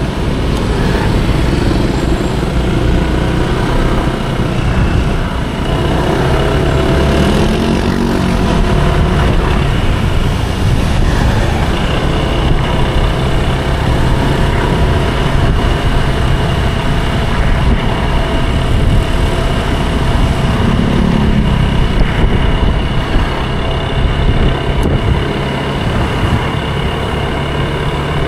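Small Honda motor scooter running steadily while being ridden through town traffic, with road and engine rumble throughout. A pitch rises and falls twice, about a third of the way in and again near three quarters through.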